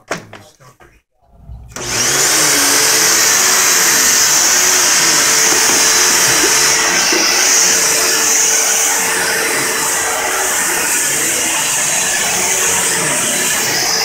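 A few knocks, then about two seconds in a vacuum cleaner is switched on, and its motor runs steadily and loudly over the carpet.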